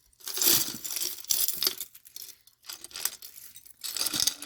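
Jewelry being pulled out of a glass canning jar, the pieces clinking and rattling against the glass in several short bursts.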